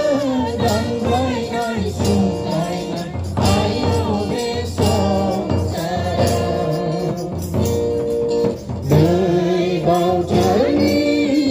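A mixed group singing a Bodo gospel hymn together into microphones, with a two-headed hand drum keeping a steady beat and a harmonium holding the notes.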